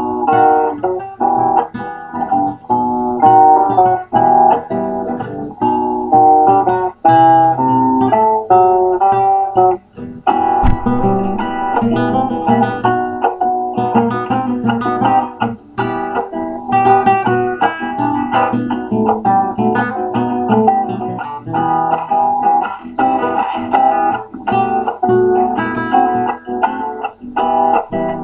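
Classical guitar playing an instrumental passage of a milonga: a quick run of plucked melody notes over the bass, with no singing.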